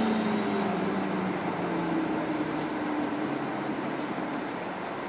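Interior running sound of a Mitsubishi Fuso Aero Midi MK (KK-MK23HM) non-step route bus, with diesel engine and drivetrain hum over road noise. The hum falls in pitch and the sound eases off as the bus slows.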